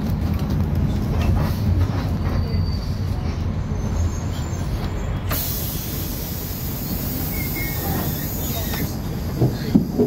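City bus engine and road noise heard inside the cabin, a steady low rumble. About halfway through a high hiss sets in for three to four seconds, and a few short knocks come near the end.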